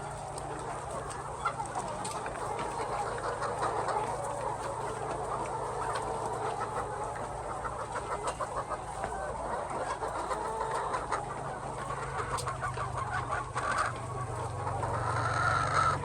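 A large flock of egg-laying chickens clucking all at once, a dense, continuous chorus of overlapping calls, over a steady low hum.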